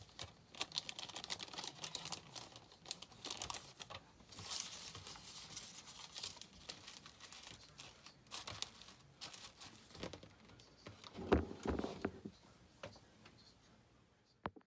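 Clear plastic bags crinkling and rustling as they are handled, in irregular crackles with a louder stretch of rustling about eleven seconds in and a single sharp click near the end.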